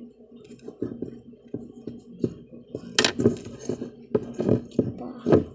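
Irregular clinking and knocking of tableware, such as a spoon or dishes against a bowl, with a louder, ringing clink about three seconds in and another near the end.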